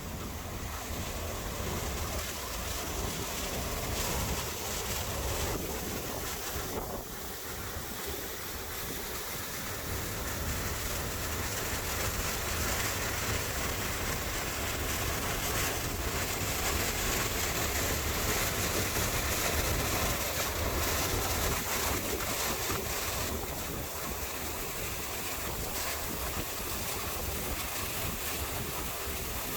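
Waterfall rushing, a steady dense sound of falling water that grows a little louder toward the middle.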